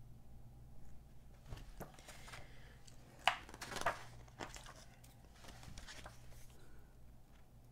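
Pages of a glossy paperback magazine being turned by hand: paper rustling, with two sharper page flaps a little after three seconds in that are the loudest moments.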